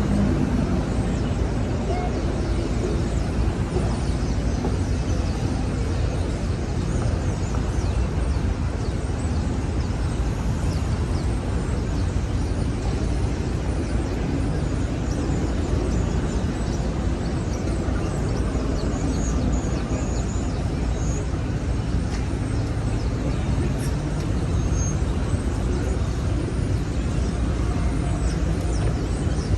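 Steady city street ambience: a continuous rumble of traffic, with faint scattered higher sounds on top.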